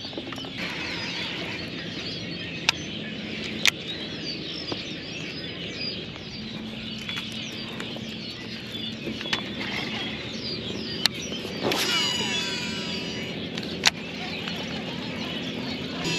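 Many birds chirping over a steady low hum, with a few sharp single clicks and a brief cluster of whistled sweeping tones about twelve seconds in.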